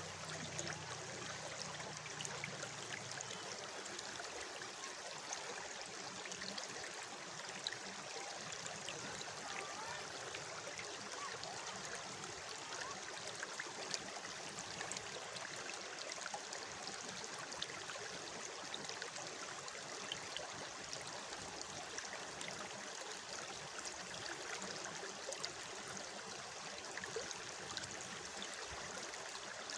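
Running water, a small waterfall or cascading stream, rushing steadily with many small splashes and drips in it.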